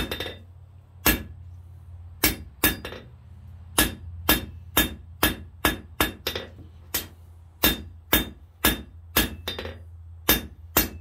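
Hand hammer striking red-hot square steel stock on an anvil, about twenty sharp ringing blows, spaced out over the first few seconds and then about two a second: drawing out a taper.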